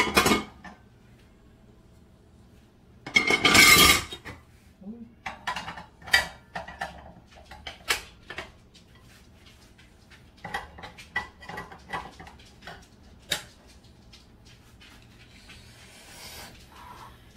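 Dishes and metal cutlery clattering and clinking as they are handled, with one loud rattling clatter about three seconds in followed by a string of sharp separate clinks.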